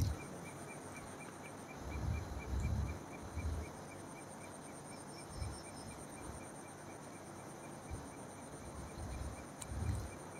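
Crickets chirping steadily in a faint, even rhythm of about three chirps a second, with a faster, higher trill running alongside. A few soft, low thumps come and go underneath.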